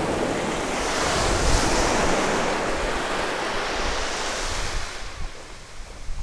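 Small waves breaking and washing up a sandy shore, swelling about a second or two in and easing off near the end, with wind buffeting the microphone.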